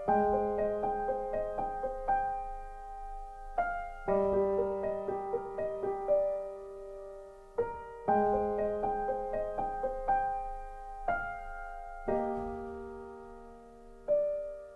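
Background music: solo piano playing a slow, gentle melody over sustained chords, in phrases about four seconds long that fade before the next begins.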